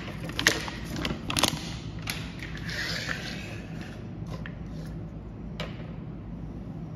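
Sharp clicks and taps of hard plastic toy doctor-kit pieces and their cardboard backing card being handled and set down on a wooden table. A soft scraping rustle comes about three seconds in, and a steady low hum runs underneath.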